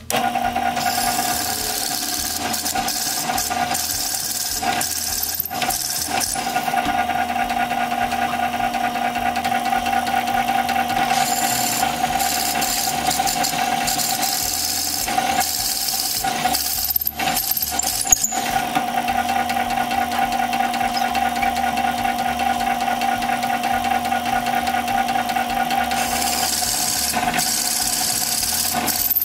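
Drill press motor running steadily with a cutter spinning on the end of a wooden dowel. Stretches of high cutting hiss come and go, a few seconds each, and the hum breaks off briefly about two-thirds of the way in.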